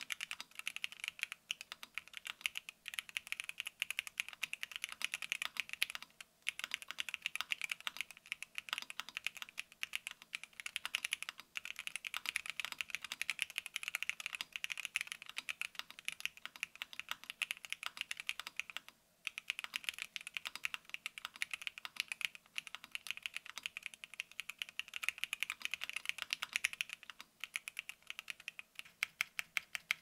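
Typing on a QK75 mechanical keyboard with a POM plate and factory-lubed Gateron Cap V2 Milky Yellow linear switches under Drop DCX keycaps: a fast, steady run of keystroke clacks, broken by short pauses a few times.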